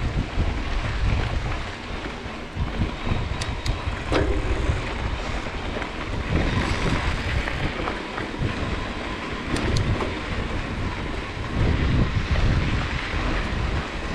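Wind buffeting the camera microphone while a mountain bike rolls over a gravel dirt road, with the low rumble and crunch of tyres on loose stones. There are a few sharp ticks of gravel or bike rattle a little after three seconds and again near ten seconds.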